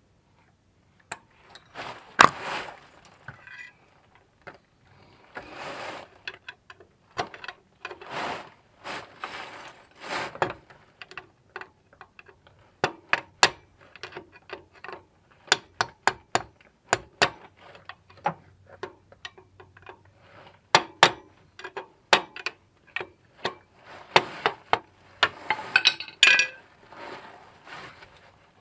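Irregular sharp metal clicks and clinks with bits of rustling, from hand tools and parts being handled during A/C compressor clutch work.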